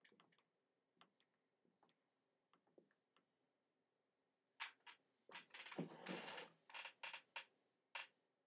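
Faint scattered ticks, then about four and a half seconds in a run of sharp clicks and knocks, with a brief rustling scrape among them, from objects being handled.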